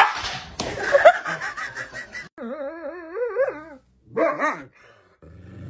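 A dog vocalizing in short cut-together bits: sharp barks and quick yips, then a long, wavering, howl-like whine.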